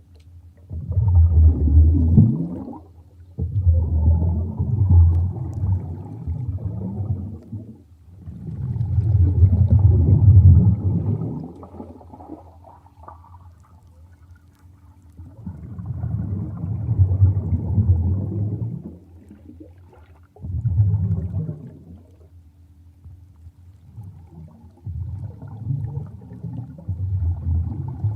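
Underwater ambience: low, rumbling, gurgling water surges that swell and fade about six times, each a few seconds long, over a faint steady hum.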